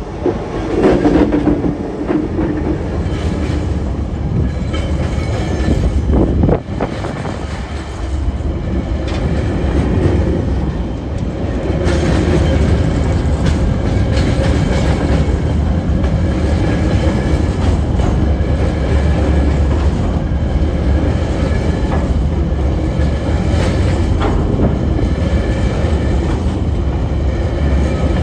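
Diesel-hauled freight train of empty coal wagons rolling past over a road level crossing: a steady heavy rumble with wheels clicking repeatedly over the rail joints, and a held engine tone in the first few seconds.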